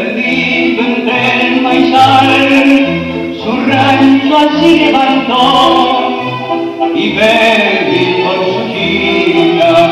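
Recorded tango music playing for the dancers: a singing voice over strings, with a bass line in steady beats.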